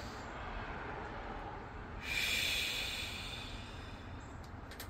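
A woman doing slow, paced yoga breathing. A soft breath through the nose comes first, then about two seconds in a louder exhale hisses out through pursed lips and fades away over about two seconds.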